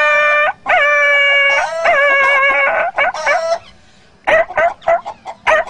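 A man imitating with his voice the yelping of a dog struck with a stick: three long, drawn-out yelps, then shorter ones, with a few quick short sounds near the end.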